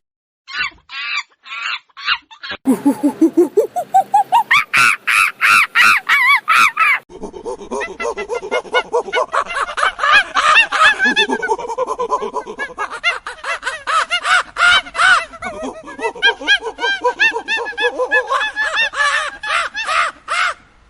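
Monkeys calling: a few short calls, then a run of hoots that climbs steadily in pitch and gets faster, breaking into a long stretch of shrill overlapping screeching and chattering from several animals.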